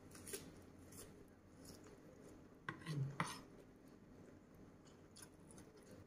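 Metal spoon clinking and scraping against a ceramic plate as spicy seafood salad is scooped up, with a few light clicks early and the loudest cluster of clinks about three seconds in.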